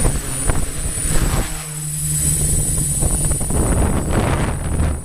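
Six-rotor multicopter's motors and propellers whirring steadily, with strong wind gusting over the microphone from about three and a half seconds in.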